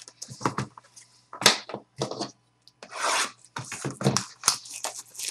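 Trading card pack wrapper crinkling and tearing as it is opened, in a run of irregular short rustles.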